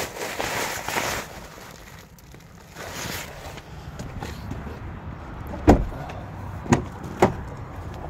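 Handling noise around a car's driver seat: rustling of a deployed airbag's fabric, then three sharp knocks a little over halfway through, the first the loudest.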